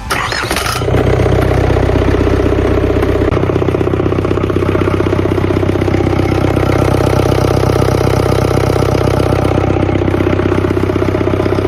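Yanmar 4TNV94 four-cylinder diesel engine starting, catching just under a second in, then running steadily at idle with an even, rapid diesel clatter.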